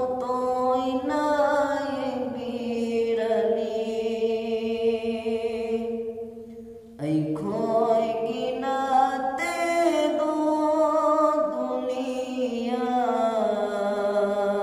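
A man singing a Manipuri naat, a devotional song in praise of the Prophet, in long, drawn-out phrases with no instruments. There is a brief pause for breath about halfway through.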